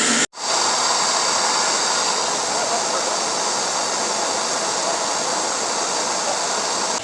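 Blacksmith's forge running with a steady rushing roar, broken by a sudden dropout about a third of a second in.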